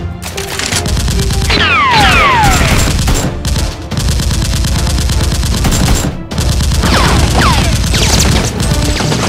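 Rapid automatic gunfire sound effects, dense volleys of shots with a short break about six seconds in, over background music. Falling whistles sound twice, about a second and a half in and again near seven seconds.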